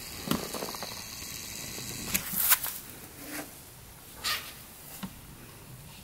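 A few brief rustles and light clicks from hands and a tool working at the open fill hole of a UTV's front differential. The loudest comes about two seconds in, and a shorter one follows about four seconds in.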